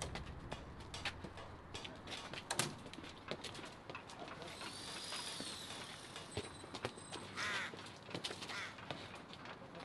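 Outdoor ambience of a football being kicked around on pavement: scattered knocks and scuffs at an uneven pace. A couple of bird calls come through, one a rising-and-falling whistle in the middle and another call a little later.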